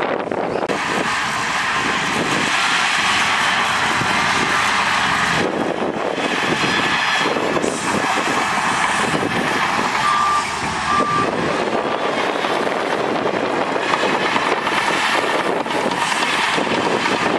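Heavy diesel earthmoving machinery running steadily, with a reversing alarm giving two short beeps about ten seconds in.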